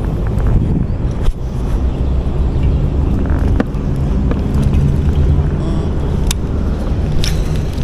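A motor running steadily with a low rumble, most likely a boat engine on the river, with a few sharp clicks over it.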